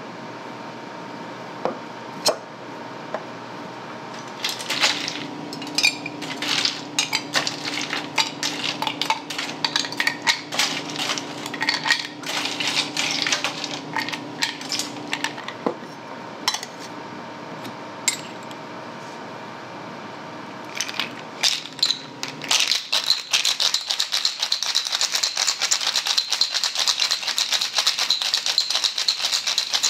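Ice cubes clinking and clattering as they are scooped into a metal cocktail shaker, in irregular bursts of clicks. About three-quarters of the way through, this gives way to a steady, fast, continuous rattle of ice being shaken hard inside the closed shaker to chill a gimlet.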